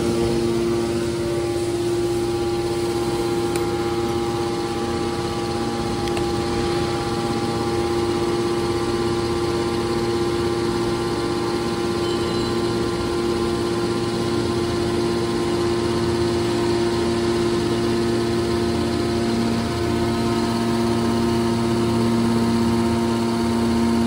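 Hydraulic power unit of a scrap metal baler running steadily: its electric motor and pumps hum with a few steady whining tones.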